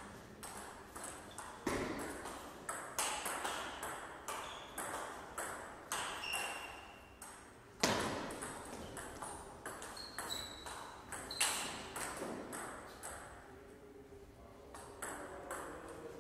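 Table tennis ball clicking off rubber paddles and bouncing on the table in fast back-and-forth rallies, each hit ringing briefly in the hall's echo. The hardest hit comes just before the middle, and the hits thin out for a moment near the end.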